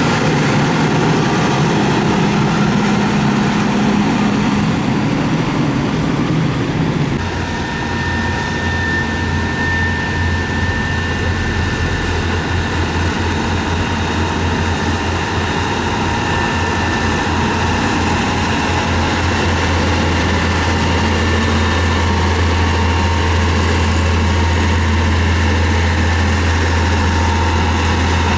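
Heavy diesel engine of road-construction equipment running steadily under work. About seven seconds in the sound changes abruptly to a steadier, deeper drone with a faint high whine over it.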